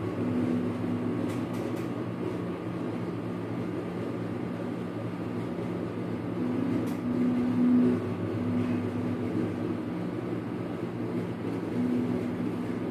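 Steady low machine hum, with a slightly louder tone that comes and goes several times.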